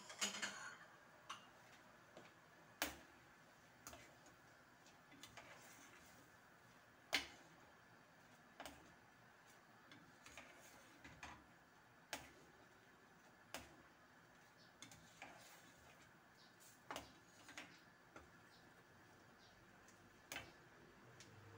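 Metal spoon clinking against a stainless steel pan while stirring coconut milk: sharp, light clinks, about one every second or two at an uneven pace, with quiet in between.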